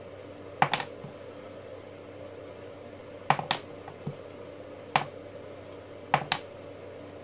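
Small dry-cell batteries dropped a few centimetres onto a workbench, four times. Each lands with a sharp click, most followed at once by a quicker second click as the cell bounces. This is a bounce test of charge: a spent cell bounces several times, while one that still holds charge barely bounces.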